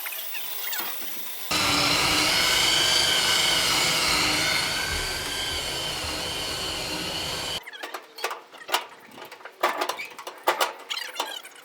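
Power drill running steadily under load with a high whine for about six seconds. It starts and stops abruptly, followed by scattered clicks and knocks.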